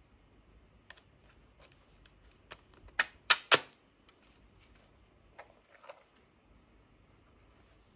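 Light clicks from a plastic handheld computer being handled, then three sharp plastic clacks in quick succession about three seconds in as its slide-up screen is pushed shut over the keyboard. Two softer knocks follow as the device is turned over.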